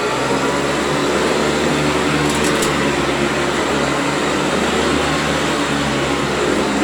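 Hoover Decade 80 upright vacuum cleaner running steadily at full speed, a loud, even motor and airflow noise.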